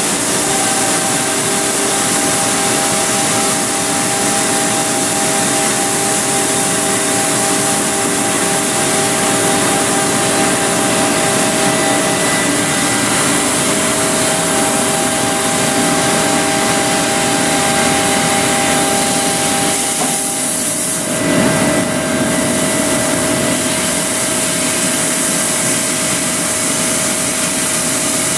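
Mazak Space Gear 48 CNC laser cutting sheet metal: a steady loud hiss with a constant machine hum of several steady tones. About twenty seconds in one of the tones drops out and the noise briefly shifts before settling again.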